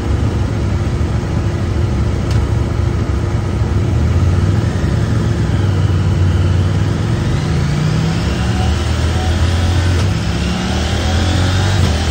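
KTM 890 Duke's parallel-twin engine running hard on a chassis dyno for a baseline power pull, with the rear wheel driving the dyno drum. The bike is stock apart from a slip-on exhaust, with its catalytic converter still in place. The engine note climbs in pitch as the revs build through the second half.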